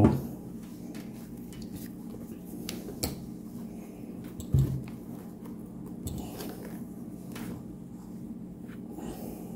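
A shoelace being wrapped and pulled around a shoe to clamp its freshly glued sole: soft handling and rubbing noises with a few light clicks, and one thump about four and a half seconds in, over a steady low hum.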